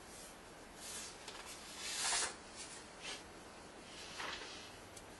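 Paper pages of a script rustling as they are picked up and handled: four soft, short rustles about a second apart, the loudest about two seconds in.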